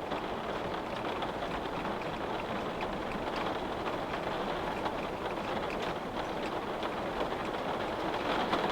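Steady rain pattering on a window-pane, a constant wash of rainfall dotted with many small drop ticks.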